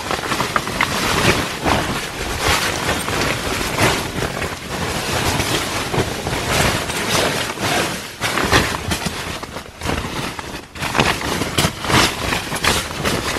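Nylon sleeping bag and bivy sack rustling as they are handled and spread out, a continuous run of irregular swishes.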